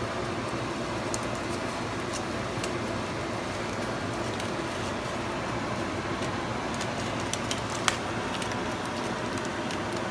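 Aluminium foil crinkling in scattered faint crackles as hands fold and crimp it, with one sharper crackle near the end, over a steady background hiss.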